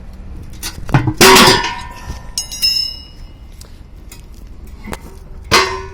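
Metal clanking with ringing as a cast-iron manhole cover is opened: a loud clank about a second in, a brief high ring soon after, and another clank near the end.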